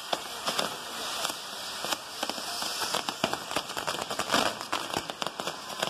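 Spinning firework wheels on a castillo firework tower, a steady hissing, crackling shower of sparks broken by many irregular sharp pops and bangs.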